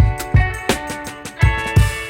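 Background music: a guitar-led song with a steady kick-drum beat, no vocals.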